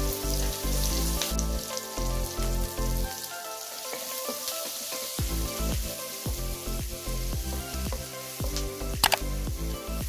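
Chopped onions and curry leaves sizzling as they fry in hot oil in a wok, stirred with a spatula, with a sharp tap about nine seconds in. Soft background music runs underneath.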